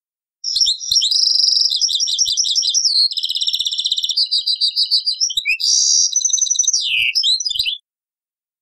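European goldfinch singing one long song phrase of rapid high trills and twitters, with a falling slur near the end. The song starts about half a second in and stops shortly before the end.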